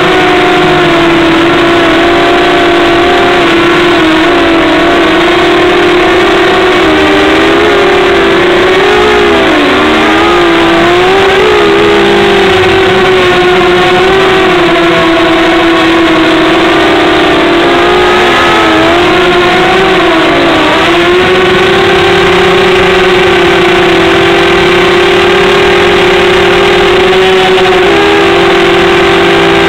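An engine running steadily at one speed, loud and close to the microphone, its pitch dipping briefly a couple of times and then settling again.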